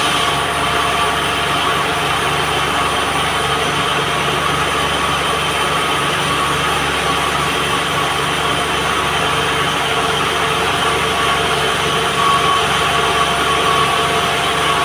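Band sawmill running steadily: a loud, even machine noise with constant humming tones that doesn't change through the stretch.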